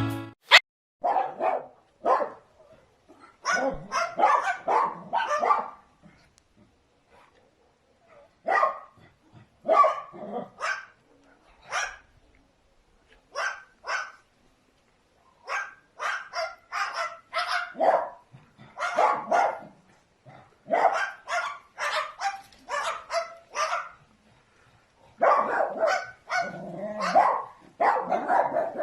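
Repeated short, dog-like barks, some single and some in quick runs of several, with brief silences between them.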